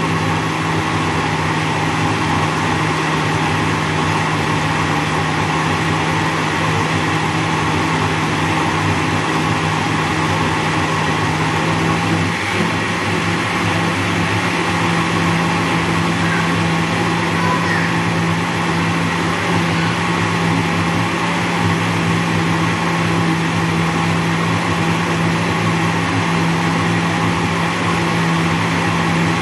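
Electric countertop blender running steadily with a constant motor whine, blending a batch of pumpkin punch.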